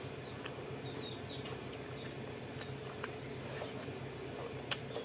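Close-miked eating sounds: wet squelching of rice and pork curry worked by hand, with chewing and lip smacks. Scattered small clicks run through it, the sharpest near the end.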